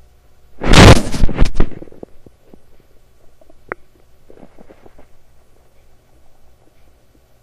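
Intestinal gurgling (borborygmi) from an upset lower bowel: a loud, sudden burst of gurgles about a second in, then fainter scattered bubbling gurgles.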